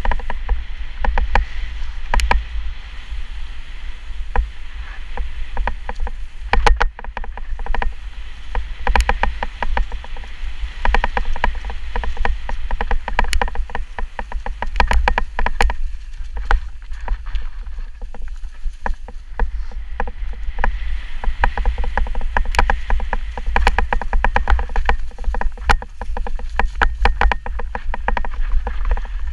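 Mountain bike descending rough singletrack, heard from a camera on the rider: a constant low wind rumble on the microphone with a dense, irregular clatter of clicks and knocks as the bike rattles over roots, rocks and dry leaves.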